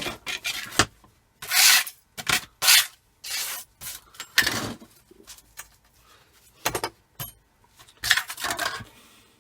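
Hand scraping and rubbing on small pieces of scrap metal, in about ten irregular short strokes with pauses between them.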